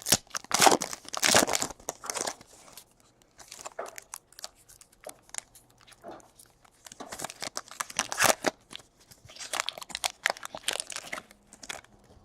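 Trading card pack wrappers crinkling and tearing and cards being handled, in irregular rustling bursts, loudest near the start and again in the second half.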